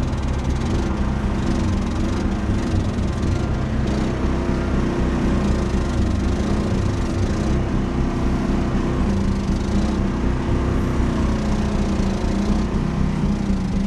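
Small excavator's engine running steadily at a constant pitch.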